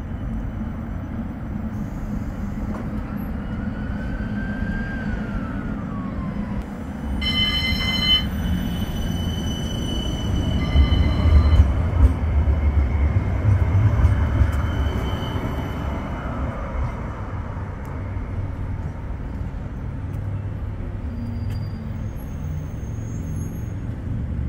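West Midlands Metro tram running past with a low rumble that builds to its loudest around eleven to fifteen seconds in, over steady street noise. A short high pitched tone sounds about seven seconds in.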